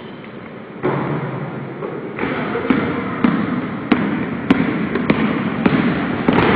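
A basketball being dribbled on a hardwood gym floor: sharp, evenly spaced bounces about every 0.6 seconds from a little under three seconds in. Under them runs a steady background din that grows louder about a second in.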